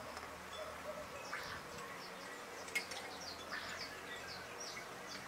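Birds calling in the background: many short, high, falling chirps, with a harsher, lower call repeating every couple of seconds. A single sharp click sounds a little past halfway.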